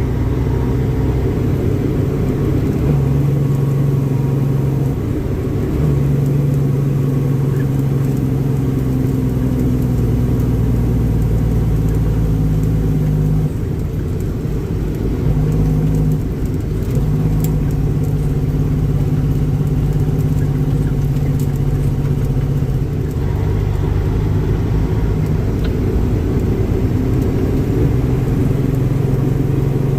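End dump truck's diesel engine running steadily, its note dipping and shifting briefly about halfway through and again a few seconds later.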